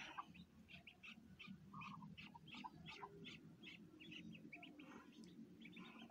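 A brood of ducklings peeping faintly, many short high peeps in quick succession.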